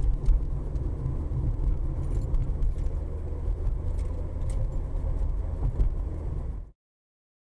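Car interior road noise picked up by a dashcam: a steady low rumble of engine and tyres from the moving car, with a few faint clicks or rattles. It cuts off suddenly to silence near the end.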